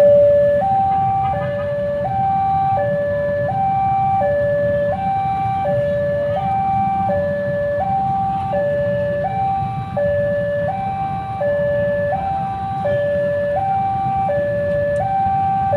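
Railway level-crossing warning alarm sounding a steady two-tone 'teng-tong', a low tone and a higher tone alternating about every three-quarters of a second. It signals that the barrier is down and a train is approaching.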